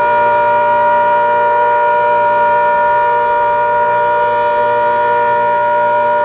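ACA Hurricane outdoor warning siren sounding a steady tone, several notes at once held at a constant pitch without rising or falling.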